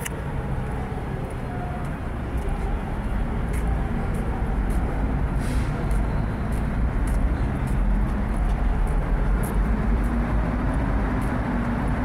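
Steady traffic on a wide city road, with cars and buses passing and a low rumble throughout. Near the end, a faint engine tone rises slightly as a vehicle pulls away.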